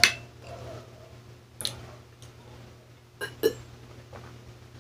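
Mouth sounds of someone eating spicy instant noodles: a few short, sharp mouth or throat noises, about a second and a half in and again a little after three seconds in, over a steady low hum.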